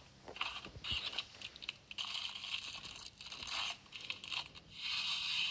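Clear plastic wrapper crinkling and rustling in uneven bursts as a foam squishy toy is handled in it, with a few short clicks near the start.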